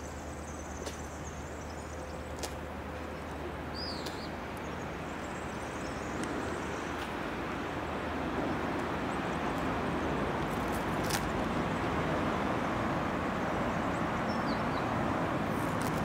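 Background traffic noise, a steady rush that swells gradually over the second half. A bird gives a short chirp about four seconds in and again near the end.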